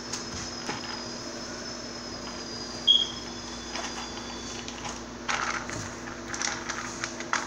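Hand pressing raw ground beef into stainless steel dog bowls: soft handling and squishing noises, with a sharp metallic ping of a steel bowl about three seconds in that rings on briefly, over a steady low hum.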